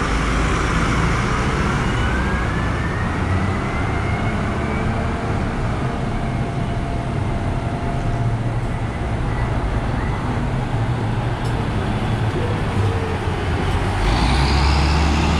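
Van Hool A300 city bus running, heard from inside the passenger cabin: steady engine and road noise with a whine that rises in pitch over the first few seconds as the bus picks up speed, then holds steady. The engine rumble grows louder near the end.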